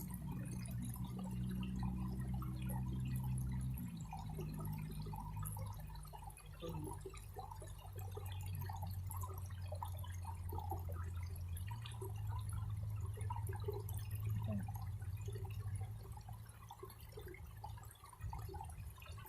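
Water dripping and trickling in small scattered drops over a low steady hum that shifts in pitch a few times.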